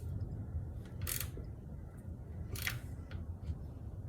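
A few separate sharp clicks from a hand tool as the last intake-manifold bolt is snugged by feel, over a low rumble of handling noise.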